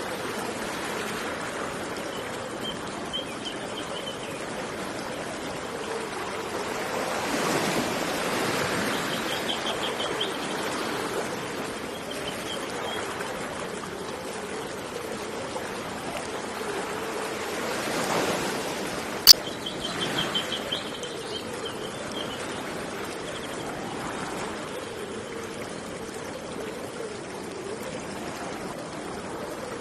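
River water running steadily, with a small bird giving short, high trilled chirps several times. One sharp click about two-thirds of the way in.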